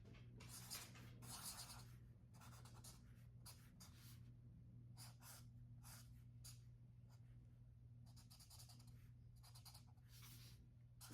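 Faint scratching of a colouring tool on paper in many short, irregular strokes, over a steady low hum.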